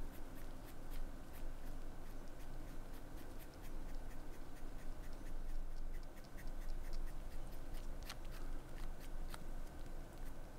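Cotton swab rubbing across an old watch dial: light scratchy rubbing with many small clicks, over a low steady hum.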